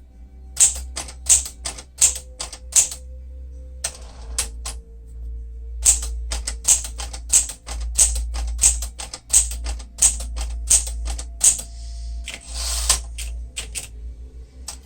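Type bars of a 1965 Sears Citation 12 manual typewriter, Smith-Corona mechanism, striking the platen in quick runs of keystrokes. Twice the carriage slides across in a longer rushing sweep.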